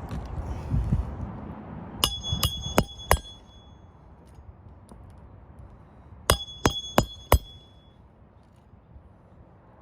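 Hammer driving roofing nails with a roof snake under a shingle: two sets of four sharp, ringing metal blows about a third of a second apart, the second set about four seconds after the first.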